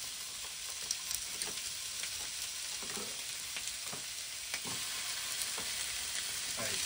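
Frozen lamb chops sizzling and crackling on the hot ribbed plates of a Tefal Optigrill Elite contact grill. A few knocks are heard as more chops are laid down.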